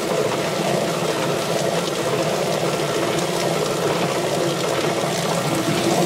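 Tub-style chicken plucker running with scalded birds inside while a garden hose sprays water into the drum: a steady motor hum under the hiss and splash of water.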